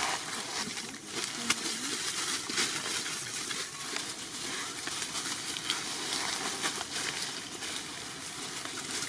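Steady outdoor background noise: an even hiss scattered with many small crackles and ticks.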